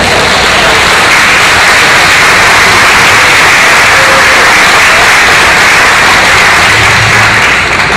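Loud, steady hiss of static-like noise that fades out near the end.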